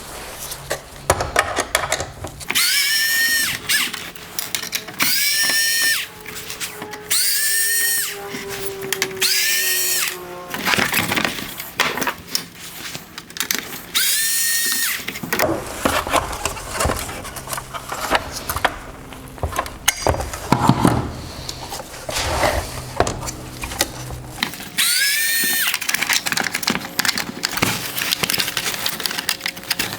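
Power screwdriver with a small Torx bit spinning up in short bursts, about six times, each a quick rising whine that levels off, backing screws out of a plastic headlight housing. Music plays underneath.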